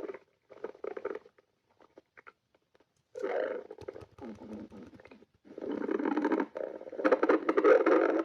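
Human stomach growling, bubbly gurgling rumbles in bursts. A few short ones and scattered clicks come first, then longer runs start about three seconds in, and the loudest comes near the end.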